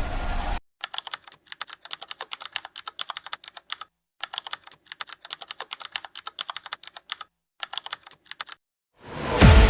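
Computer keyboard typing: quick runs of key clicks over a dead-silent background, with two short pauses. Music cuts off just before the typing starts, and a loud whoosh with a deep falling boom comes in near the end.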